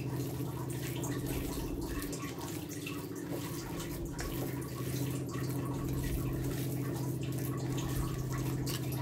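A hand squeezing and kneading a moist ground chicken and bread mixture in a steel bowl: irregular soft, wet squelches over a steady low hum.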